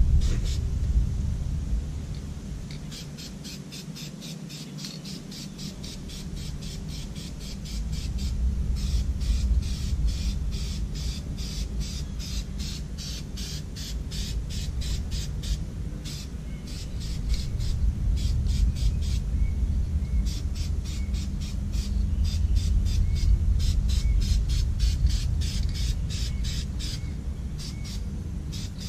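A bird calling in long runs of rapid, evenly spaced notes, about four a second, with a few short breaks, over a low rumble.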